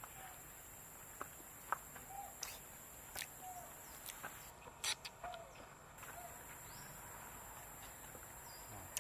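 Quiet outdoor ambience with a steady high hiss, scattered soft clicks and taps, and a few short, faint chirps spread over the first six seconds.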